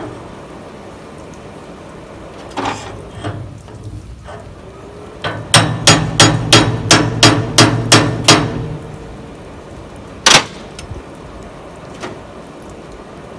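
Hand hammer striking a hot railroad spike clamped in a blacksmith's post vise. A couple of light taps, then a quick run of about ten ringing blows at roughly three a second, with a low ring under them, and one more single loud hit a couple of seconds later.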